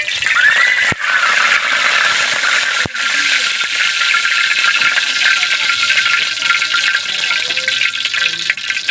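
Cooking oil sizzling in a hot metal wok, a steady hiss with fine crackling spatters, just after the oil is added.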